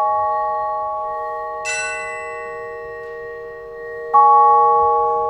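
Vibraphone played with soft yarn mallets: a held chord rings on and slowly fades, the notes left sounding into one another. A bright high note is struck just under two seconds in, and a fresh lower chord about four seconds in.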